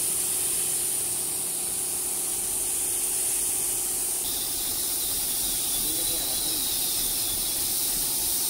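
Compressed-air spray gun hissing steadily while spraying black paint onto a motorcycle side panel. The hiss grows fuller about four seconds in, with a faint steady hum underneath.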